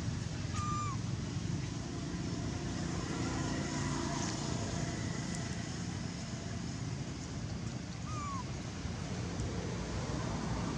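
Steady low rumble of nearby road traffic. Two short falling chirps cut through it, one about half a second in and one about eight seconds in.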